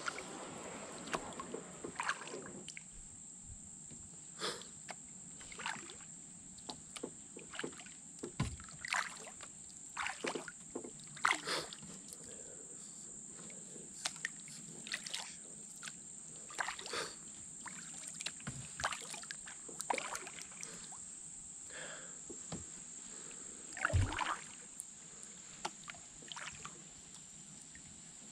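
Kayak paddling on calm, shallow water: irregular paddle splashes and drips, with two heavier thumps about eight seconds in and near the end. A steady high-pitched hiss lies underneath.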